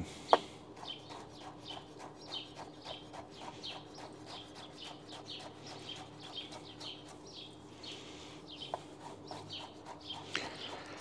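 Small birds chirping steadily in the background, several short falling chirps a second, while a chef's knife cuts mango into thin strips on a wooden cutting board: soft taps of the blade on the wood, with a sharper knock just after the start. A faint steady hum underneath.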